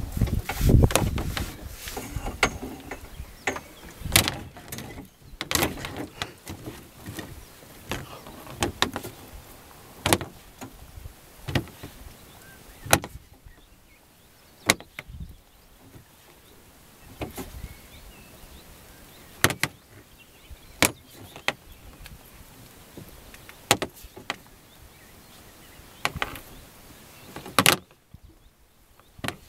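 Irregular knocks and clatters, about one every second or two, from a double-funnel monofilament fyke net being hauled by hand over the side of a small boat, its hoops and netting landing in the hull. A low rumble sits under the first couple of seconds.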